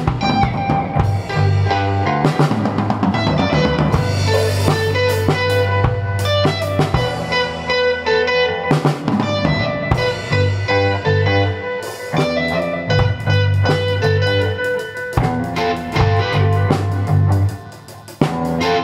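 Reggae-tinged post-punk band recording: drum kit, electric guitar, bass guitar and ARP synthesizer playing together, with a brief drop in loudness shortly before the end.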